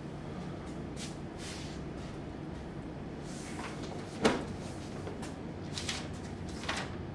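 Whiteboard duster rubbing across the board in a few short wiping strokes, then a sharp knock about four seconds in as something is set down, followed by brief paper rustling.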